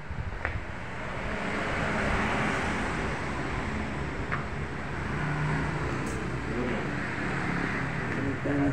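Road traffic going by: a steady rush of engines and tyres that swells and eases, with a low engine hum in the middle.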